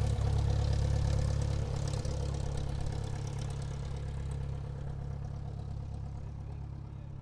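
Airplane engine running at taxi power, a steady low hum that fades gradually.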